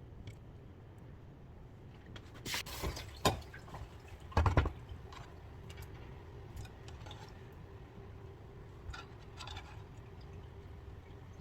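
A few short splashes or pours of liquid with sharp knocks among them, then softer clicks.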